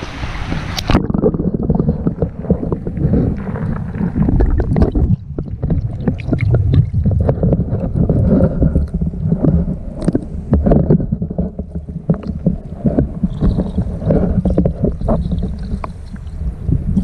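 Rushing water heard through a GoPro's waterproof housing as it goes under the surface of a trout hatchery raceway: the bright hiss of splashing water cuts off about a second in, leaving a muffled underwater rumble of flowing water with many small knocks and clicks against the housing.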